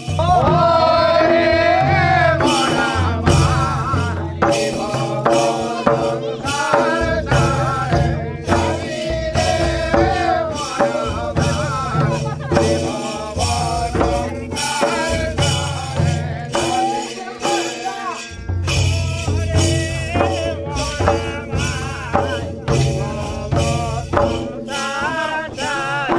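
Folk music for a Kathi Nacha stick dance: singing over the steady beat of a barrel drum and dense, sharp percussion. The low drum beat drops out for a moment about two-thirds of the way through.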